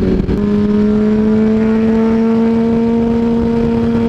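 2007 Yamaha R1's inline-four engine running at highway speed. Its note breaks briefly right at the start, then comes back slightly higher and climbs slowly before holding steady, over loud wind noise.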